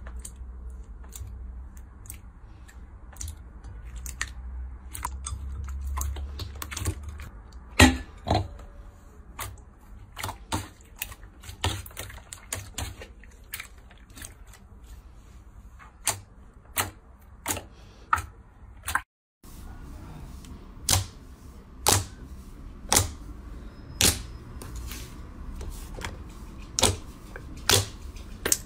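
Slime being pressed and poked, making sharp, separate clicks and pops: irregular at first, then about one a second after a brief gap two-thirds of the way through.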